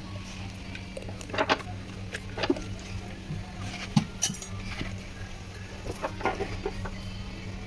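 Hand tools and metal parts clicking and knocking in irregular taps, with a few short squeaky sounds, over a steady low hum.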